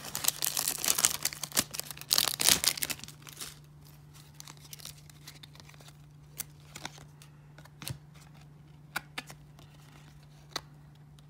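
Wax-paper wrapper of a 1994 Topps baseball card pack crinkling and tearing as the cards are pulled out, for about three seconds. Then quiet handling of the cards, with a few soft clicks and snaps as they are thumbed apart one by one.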